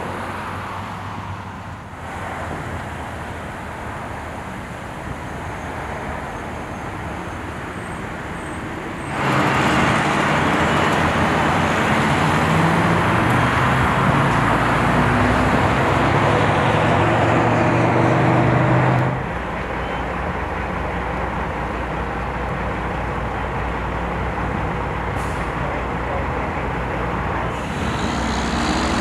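Road traffic going by, with one heavy motor vehicle's engine loud for about ten seconds in the middle before the steady traffic noise returns.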